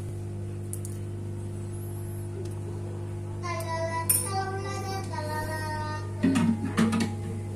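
A high, child-like voice sings a short melody over a steady low hum, with a few knocks near the end.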